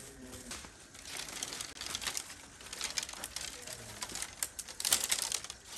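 Plastic bag rustling, then dry branches crackling and snapping as they are broken up by hand: an irregular run of sharp cracks, loudest about five seconds in.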